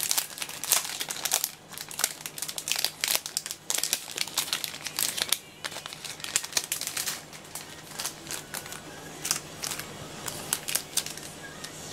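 Clear plastic packaging crinkling and crackling as it is handled, in quick irregular crackles that thin out over the second half.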